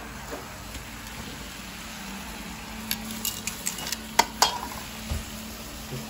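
Metal tongs clinking against a stainless steel mixing bowl several times about halfway through, the two loudest clinks close together, while marinated meat sizzles steadily on an electric griddle.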